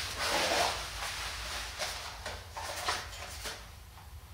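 Handling noise: a short rustle at the start, then a few light knocks and clicks as items are moved about and set down.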